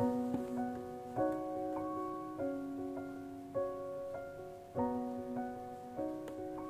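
Background piano music: a slow, even pattern of chords struck about every second and a bit, with single notes picked out between them.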